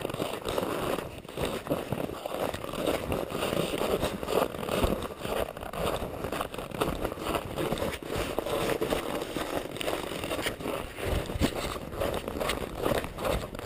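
Footsteps crunching through snow, with clothing rustling and scraping close by, as a person and a dog walk a snowy trail.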